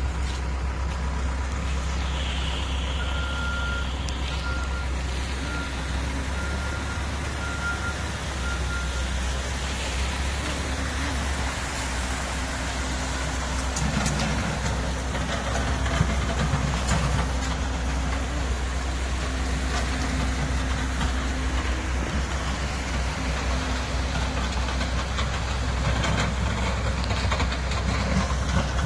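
Diesel engine of a loader running steadily. Its backup alarm beeps evenly for several seconds near the start, and the engine works harder for a few seconds around the middle.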